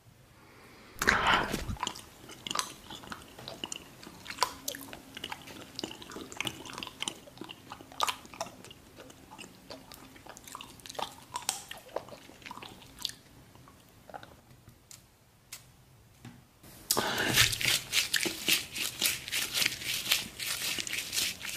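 Close-miked ASMR eating sounds: a crisp bite about a second in, then scattered chewing clicks and smacks, and a dense stretch of crunchy chewing from about 17 seconds on.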